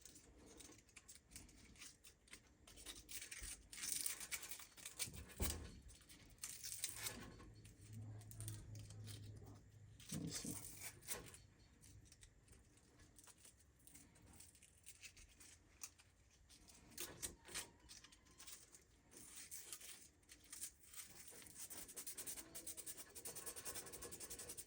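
80-grit sandpaper rubbing and scratching a furnace flame sensor rod in short, uneven strokes, with pauses between, to clean its deposits off.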